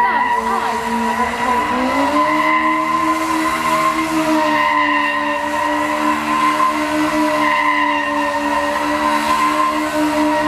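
A car engine held at steady high revs, with tyre noise. About two seconds in, the engine note rises, then holds steady.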